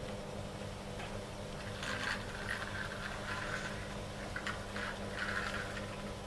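Plastic toy truck pushed back and forth across a tiled floor, its wheels and gears whirring and rattling in several short bursts, over a steady low hum.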